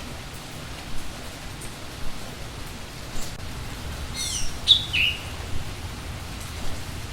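Steady rain with a bird calling about four seconds in: a short run of quick, high, falling notes. Louder drops land about once a second.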